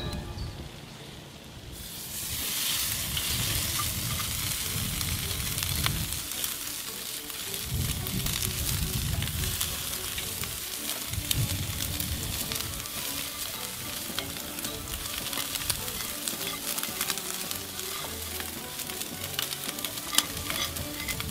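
Rib-eye steaks sizzling on a hot charcoal grill grate, a dense hiss with many small crackles. The sizzle sets in suddenly about two seconds in.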